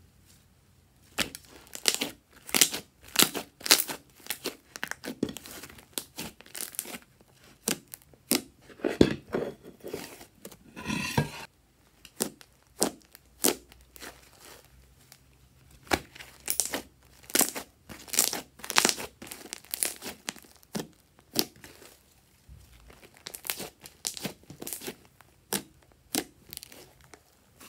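Pink fluffy slime being stretched, squeezed and pressed by hand, giving sticky crackles and clicks in clusters, with one longer squelch near the middle. There is a short pause near the start and another a little past two-thirds through.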